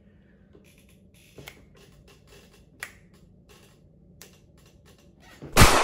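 A few faint, scattered clicks and taps at a desk, then near the end a sudden loud bang with a long fading tail.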